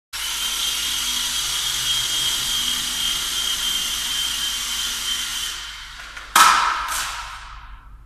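Syma S107G mini RC helicopter's small electric rotor motors whining steadily with a high tone, fading away after about five seconds. About six seconds in comes a sudden loud knock, and a second one half a second later, each ringing out briefly.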